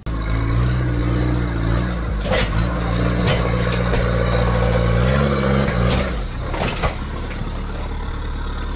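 Sherp ATV's diesel engine running as the machine creeps forward at low speed, its note rising briefly about five seconds in. Several sharp knocks come along the way.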